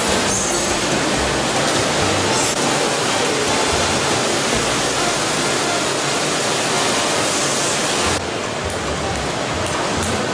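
Steady, loud rushing noise of a cheese dairy's processing hall, with machinery and water running in the steel vats and equipment. It drops a little about eight seconds in.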